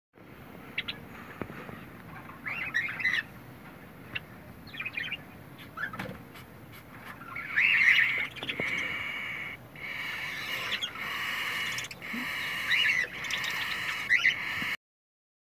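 Newly hatched cockatiel chicks giving high, buzzy begging calls. Scattered short calls come first, then from about halfway through a near-continuous begging buzz broken by short pauses.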